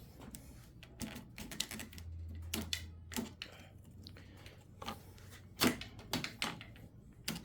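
Irregular plastic clicks and knocks as a lawn mower's handle pieces are pushed and worked into their mounting holes, going in stiffly because they are still covered in protective film.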